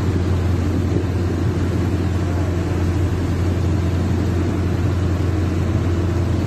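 Fishing boat's engine running steadily under power, a deep continuous hum, with the rushing water of the boat's churning wake over it.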